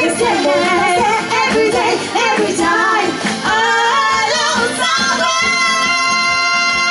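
Two women singing a pop song live through microphones, with music behind them; about five seconds in the voice settles on one long held note.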